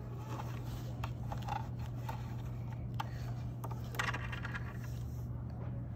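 Light clicks, taps and scrapes of small plastic toy pieces being handled, a cluster of them about four seconds in, over a steady low hum.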